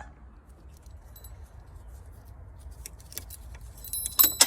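Scattered light clicks and taps of small metal parts being handled, then, about four seconds in, a loud burst of metallic clinking that rings on briefly.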